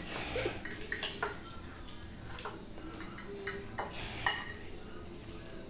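Metal cutlery clinking and scraping on ceramic plates as a knife and fork cut food, in a run of scattered short clicks, the loudest sharp clink about four seconds in.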